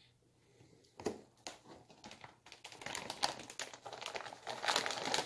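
Plastic wrapper crinkling as it is handled: a few separate crackles about a second in, thickening into continuous crinkling through the second half.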